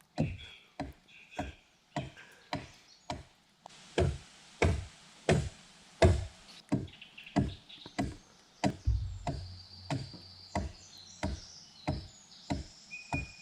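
Axe chopping wood in a fast, even rhythm of about one and a half strokes a second, each stroke a sharp knock. Steady electronic tones come in over the second half.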